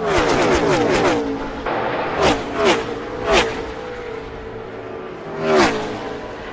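Gen 6 NASCAR V8 stock cars passing a trackside microphone at racing speed, each engine note dropping sharply in pitch as it goes by. A tight pack goes past in the first second or so, then single cars pass four more times, three in quick succession a couple of seconds in and one more near the end.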